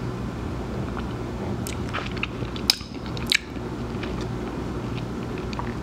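Mouth sounds picked up close to the microphone as a man sips and tastes shochu: a few wet lip smacks and tongue clicks, mostly two to three seconds in, over a steady low background hum.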